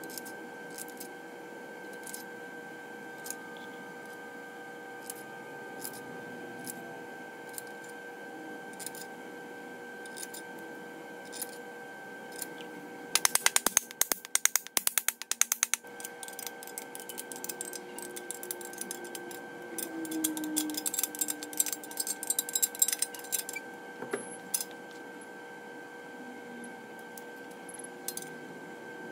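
Hand ratchet clicking rapidly for a few seconds about halfway through, running main bearing cap bolts down on an aluminum LS1 block, followed by several seconds of louder, irregular metal clicking and rattling from the wrench and bolts. A steady shop hum with faint regular ticks runs underneath.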